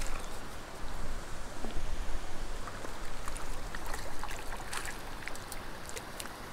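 A hooked brook trout splashing at the surface of a still pond, making small, irregular splashes and ticks over a steady background hiss.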